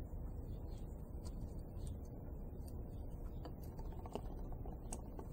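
Scattered faint clicks and taps of small hand tools, pliers and a clamp, being handled at a workbench, over a steady low hum.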